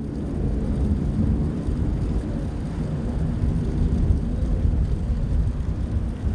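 Steady low rumble of wind buffeting the microphone aboard a vessel at sea.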